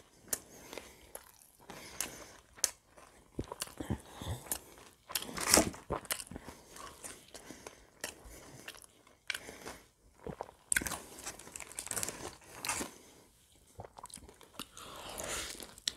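Close-miked chewing of crispy fried chicken: short crunches and wet mouth clicks that come and go, loudest about five and a half seconds in.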